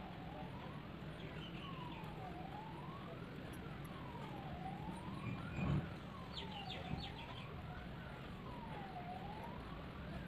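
A siren wailing, its pitch sliding up and down about every two seconds, over a steady low hum. A single soft knock is heard a little past halfway.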